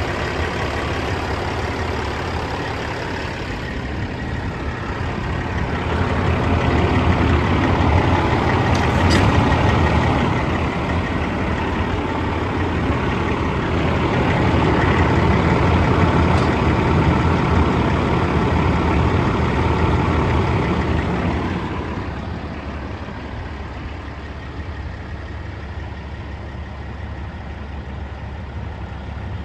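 Caterpillar 3406 inline-six diesel engine, tuned to 550 hp, idling steadily in a semi truck. It grows louder in the middle stretch and drops back after about twenty-two seconds.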